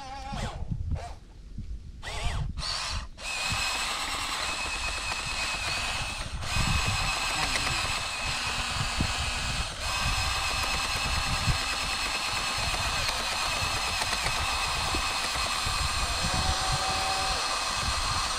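Small electric motors of radio-controlled construction models whining, stopping and starting a few times in the first three seconds, then running steadily.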